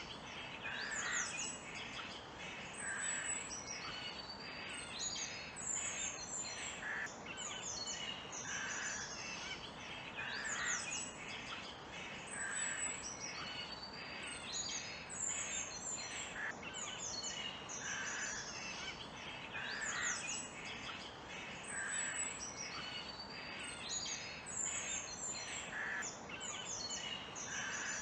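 Forest birds chirping and calling continuously, with quick high trills and a lower call that comes back about every two seconds, over a steady background hiss.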